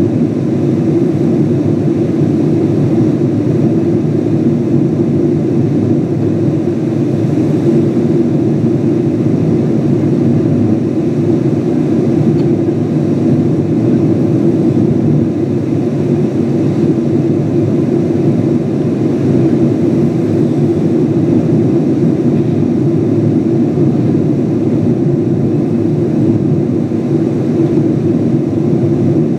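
Steady cabin roar of a Boeing 777-200 airliner climbing after takeoff: engine and airflow noise heard inside the cabin from a window seat by the wing, deep and even throughout.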